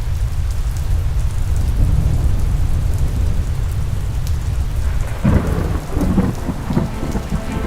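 Thunder rumbling steadily with rain falling, and a rougher, more broken peal of thunder setting in about five seconds in.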